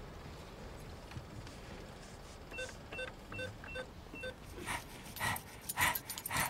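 Short electronic beeps of an ATM keypad being pressed, about seven in quick succession. After them, a dog pants in quick, rhythmic breaths.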